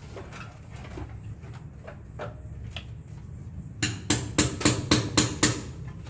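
A quick run of about eight sharp, loud knocks, like hammer blows, about five a second, starting a little past the middle, after lighter clicks and taps from work on the wiring and panel parts.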